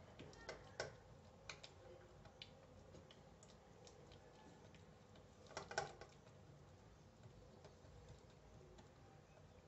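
Faint soft taps and pats of oiled fingers pressing stuffed poli dough thin on a steel plate. The taps come irregularly, with a slightly louder cluster about six seconds in.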